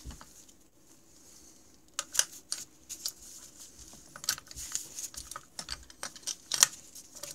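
Light metal clicks and taps, scattered and irregular from about two seconds in, as a skinny metal rod is pressed against the wrist pin to push it out of a snowmobile engine's piston.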